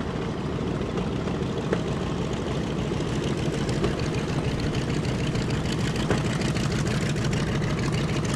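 Steady, loud roar of a B-52 Stratofortress's jet engines, with a deep rumble underneath.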